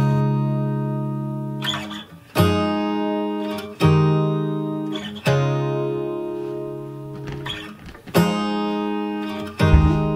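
Background music: acoustic guitar strumming chords a second or two apart, each chord ringing out and fading before the next.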